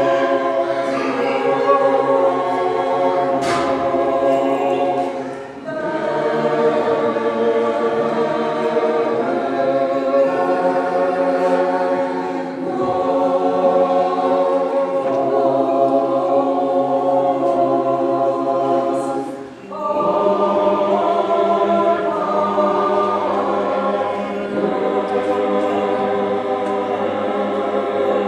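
Russian Orthodox church choir singing liturgical chant a cappella in held chords, with two brief breaks about five and a half and twenty seconds in.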